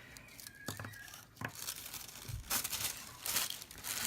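Packaging being handled by hand, crinkling and tearing in a few short bursts.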